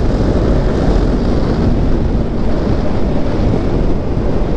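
Wind rushing over the microphone of a rider on a sport motorcycle at road speed, with the bike's engine running steadily underneath.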